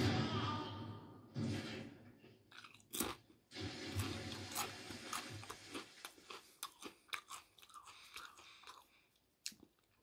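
Someone biting and chewing Doritos tortilla chips close to the microphone: a loud crunch at the start, then irregular sharp crunches that thin out and stop about a second before the end.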